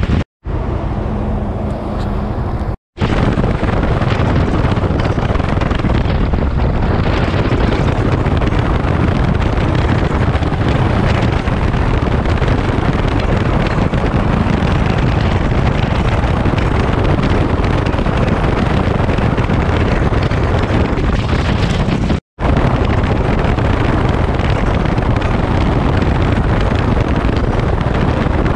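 Wind rushing over the microphone, mixed with the engine and road noise of a Daelim Daystar motorcycle riding at speed. The sound cuts out for an instant three times: twice in the first three seconds and once about three quarters of the way through.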